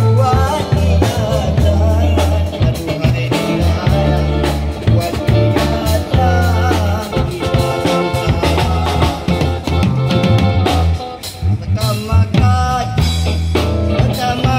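Buskers performing a song: a singer over drums and a heavy bass line.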